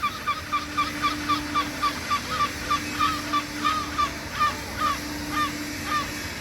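Gull giving a rapid series of short, clipped calls, about four a second, spacing out and slowing toward the end.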